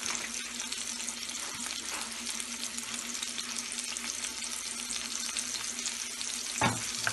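Beef burger patties with mushroom, red onion and bell pepper pieces sizzling steadily in oil in a ridged grill pan, a fine crackling hiss. A faint steady hum runs underneath, and there is a single short knock near the end.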